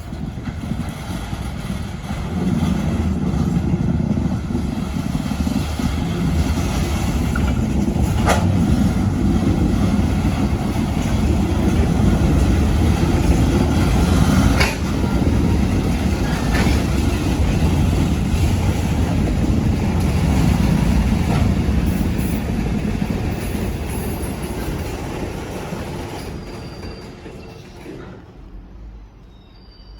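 ChME3 diesel shunting locomotive running as it pushes a string of railway wagons along the track, with the steady noise of the engine and rolling wheels. A few sharp knocks stand out, and the sound dies away over the last few seconds as the train moves off.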